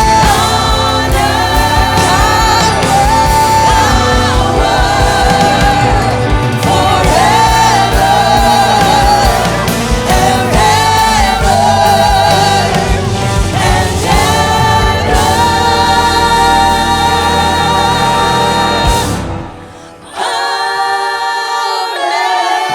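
Live worship band and group of singers performing a contemporary Christian worship song, with drums and bass under the voices. About nineteen seconds in the band drops out and the level dips briefly, then the singers carry on without drums or bass.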